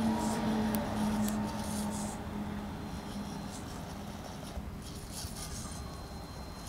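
HSP Pangolin RC rock crawler's electric motor and gearbox whining steadily as it crawls over rocks, the whine fading away after about two seconds. A low rumble runs underneath throughout.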